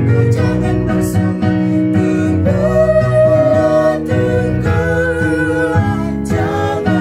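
An Indonesian hymn sung slowly with vibrato over keyboard accompaniment.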